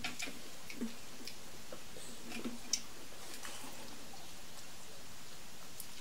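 Faint, scattered clicks and soft rustles of pastries being handled and eaten at a table, over a low steady hiss.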